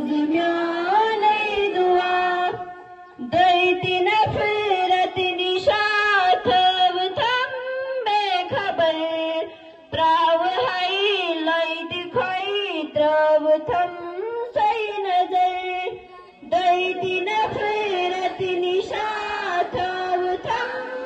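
Children singing a Kashmiri prayer as a melody, line by line, with three short breaks between phrases.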